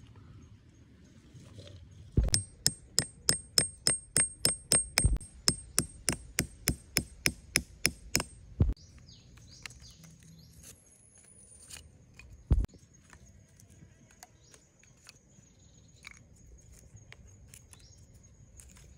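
A rapid run of about twenty hard strikes from a hand tool, roughly three a second, most with a high metallic ring, then one more strike a few seconds later.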